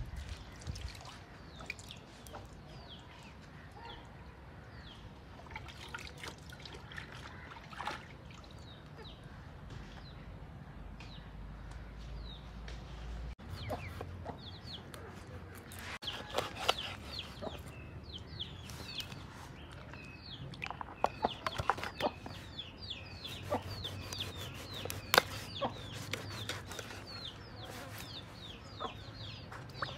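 A large kitchen knife chopping through a fish onto a wooden block. Sharp knocks come in clusters in the second half and are the loudest sounds. Birds call throughout in many short, falling chirps.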